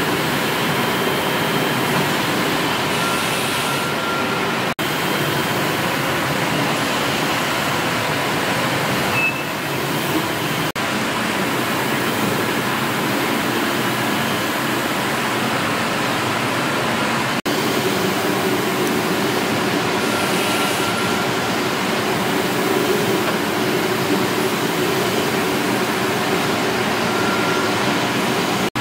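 The 1878 Goddard & Massey beam engine running, giving a steady mechanical hiss and rumble with no clear beat. Three very brief dropouts break it.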